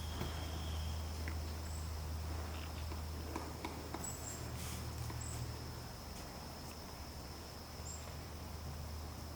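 A steady high-pitched insect-like trill over a low hum, with a few brief faint high chirps and light scattered ticks.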